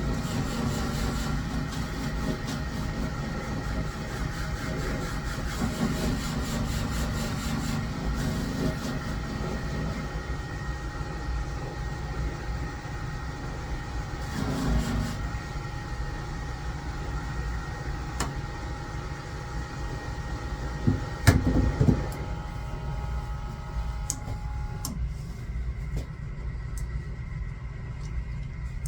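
Typhoon shear-sharpening machine running at speed with a steady whine and hum. There is a loud knock about 21 seconds in, and the whine stops about 25 seconds in as the machine is switched off.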